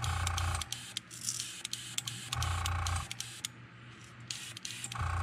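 Airbrush compressor motor humming in short bursts of about half a second, three times, roughly every two and a half seconds, as the airbrush is triggered at low pressure to spatter paint. Light clicks and a faint air hiss between the bursts.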